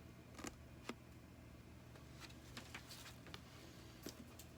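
Near silence: room tone with a low steady hum and a few faint scattered clicks.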